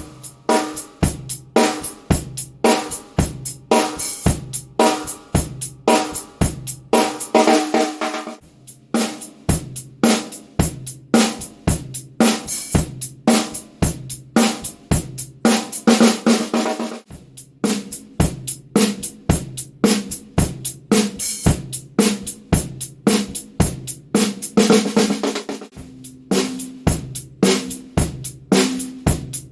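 A drum kit played in a steady groove, with a thin brass-shell piccolo snare cracking over kick drum and cymbals. The hits come several a second, with short breaks about 8 and 17 seconds in.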